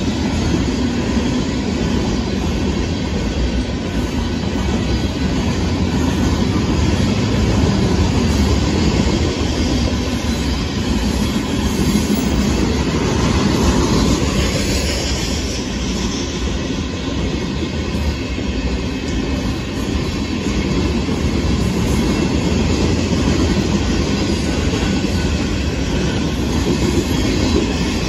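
Union Pacific freight train's hopper cars rolling past: a steady rumble of steel wheels on the rails with clickety-clack over the rail joints. There is a faint rising wheel squeal about halfway through.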